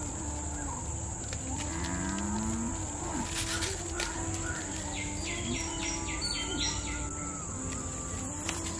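Rural outdoor ambience: a steady high insect drone with low, drawn-out wavering calls and a quick run of bird chirps. A few crackles and rustles of dry coconut fronds come as they are lit under the pan.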